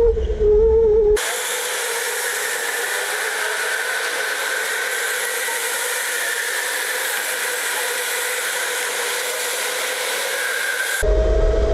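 Electric go-kart motor whining over low wind rumble for about the first second. Then, abruptly, a steady even hiss with a faint higher whine from karts running on an indoor track, until the kart's motor whine and rumble return near the end.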